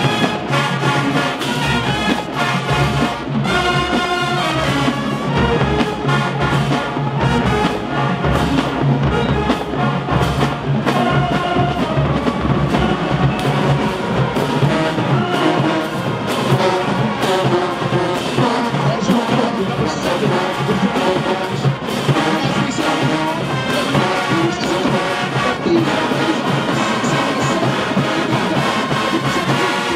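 HBCU-style marching band playing loud, full brass music (trumpets, trombones, sousaphones) over a driving drumline beat.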